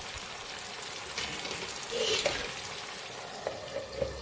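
Chicken, mushroom and capsicum curry sizzling in a non-stick frying pan, with a louder scrape about two seconds in. Near the end a glass lid is set on the pan with a couple of light clicks.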